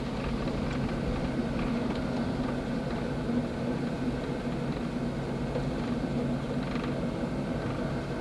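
Steady car engine and road noise heard from inside the cabin, with a constant low hum underneath.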